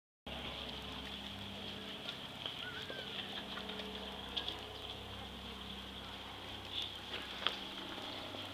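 Faint, steady outdoor background noise with a thin, high, even drone and a few soft knocks.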